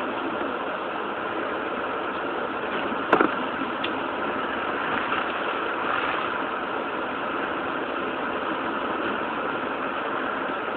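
Steady hiss of hurricane wind and rain, with a single sharp click about three seconds in.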